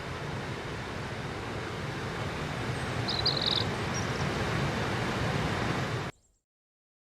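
Steady rush of a forest waterfall, with a short high bird chirp about three seconds in. The sound cuts off suddenly about six seconds in.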